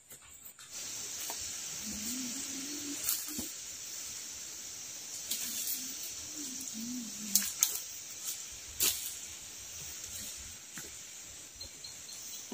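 Steady high-pitched drone of forest insects, with a few sharp knocks of chopping with a blade, two close together past the middle; two short low wavering calls sound early on and again about halfway.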